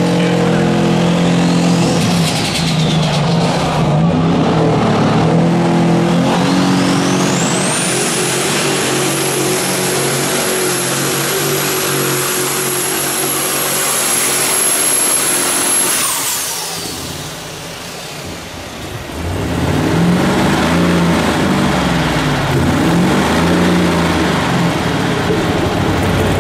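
Unlimited Super Stock pulling tractor's turbocharged engine running flat out under the load of the sled, with a high turbo whistle that climbs about six seconds in and holds. About sixteen seconds in the throttle comes off: the whistle falls away and the engine drops back. The engine then runs at a lower, uneven pitch as the pull ends.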